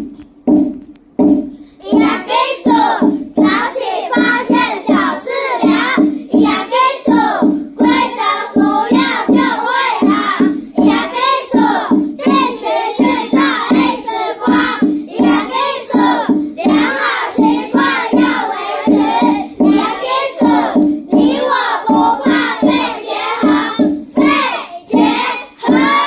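Children singing a fast song together over a steady beat.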